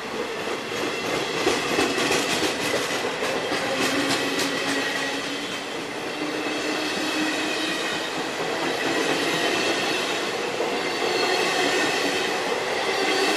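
Passenger train coaches rolling past at low speed, the wheels clacking over rail joints in a quick run of clicks during the first few seconds, with a steady rolling rumble and thin squealing tones from the wheels.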